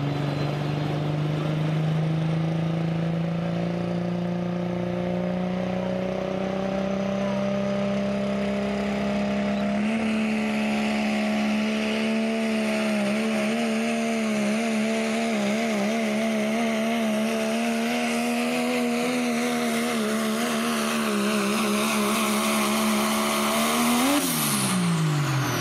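Diesel pulling truck's engine under full load down the pulling track, its revs climbing steadily for about ten seconds, then held high with a wavering pitch. Near the end the revs drop sharply and a high whistle sweeps down as the throttle is released.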